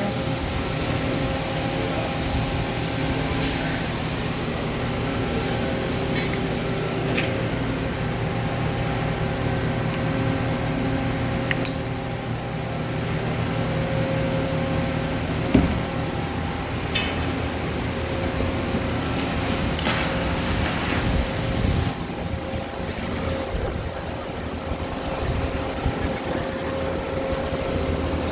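Steady hum of a powered-up Okuma LB-300M CNC turning center standing idle with its spindle stopped, with a few scattered clicks and knocks.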